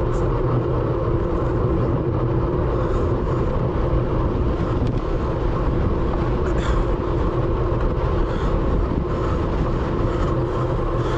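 Wind rushing over the microphone of an onboard action camera on a road bike ridden at race speed: a steady, loud noise with a constant low hum and a few faint clicks.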